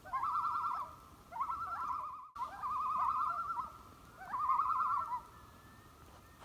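A warbling, bird-like call repeated four times, each starting with a quick upward swoop and wavering rapidly in pitch for under a second, over a faint steady whistle tone.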